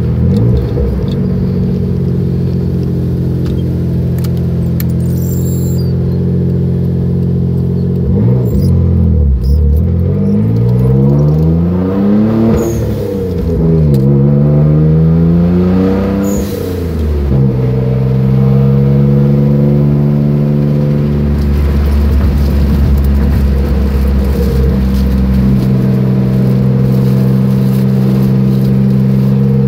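Dodge Stealth twin-turbo 3.0-litre V6 heard from inside the cabin while driving. It cruises steadily, then revs up through a gear, drops at a shift and climbs again, before settling back to steady cruising. A low rumble comes in for a few seconds in the second half.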